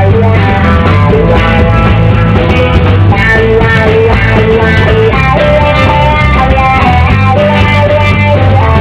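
Background music: a guitar-led rock tune with a steady beat.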